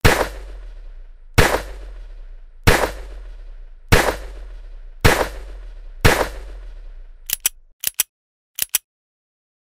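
Six revolver shots fired one after another, about one every 1.2 seconds, each with a ringing tail. Then the revolver's hammer snaps three times in quick double clicks on empty chambers.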